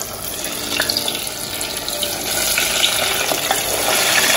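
Hot oil in a deep pot sizzling and bubbling as pieces of bammy (cassava flatbread) are dropped in to fry. It grows louder about two seconds in as more pieces go in.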